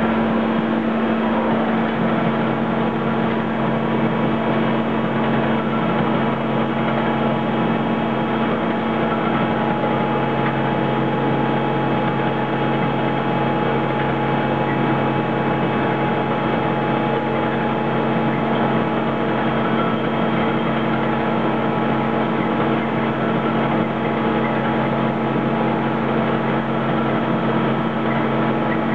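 Haco guillotine shear's motor running steadily: a constant hum with a steady tone, and no cutting stroke or impact heard.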